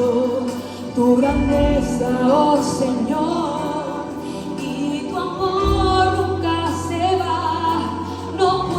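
Church choir singing a Spanish worship song with instrumental accompaniment, recorded live. Deep bass notes come in about a second in and again just past halfway.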